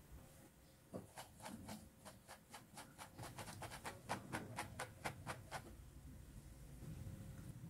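Salted raw eggplant sticks being tossed by hand in a glass bowl: a run of quick crisp clicks and rustles, about four a second, that stops about two-thirds of the way in, leaving a softer rustle.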